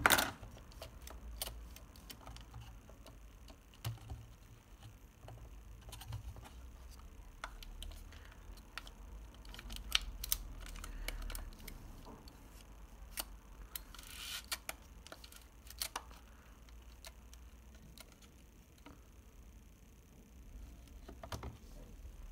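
Small, irregular metallic clicks and rattles from handling and working the exposed mechanism of a partly disassembled Horizon 202 panoramic camera, with a sharper click right at the start.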